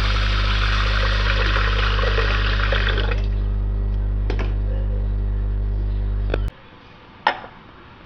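Water poured in a stream into an aluminium pressure cooker of rice and moong dal, a splashing fill that stops about three seconds in, over a loud steady low hum. The hum cuts off suddenly past six seconds, and a sharp click follows near the end.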